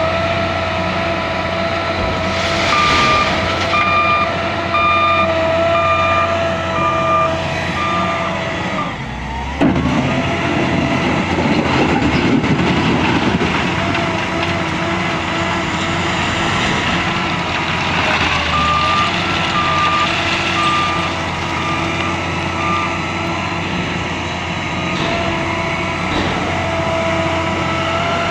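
L&T 9020 wheel loader's diesel engine running steadily under load, with its reversing alarm beeping in two runs, about three seconds in and again past the halfway mark. About nine seconds in a sudden loud rush of noise cuts in for a few seconds as the engine works harder.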